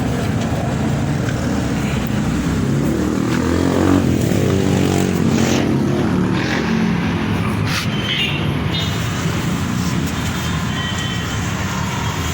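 A motor vehicle's engine running close by, with a vehicle passing that is loudest about four seconds in, plus a few light clicks.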